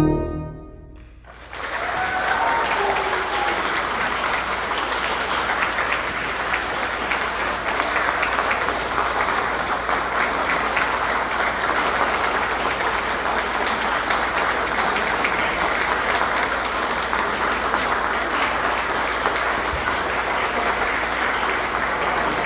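The final chord of a Dobson pipe organ breaks off and dies away. About a second and a half in, an audience starts applauding steadily.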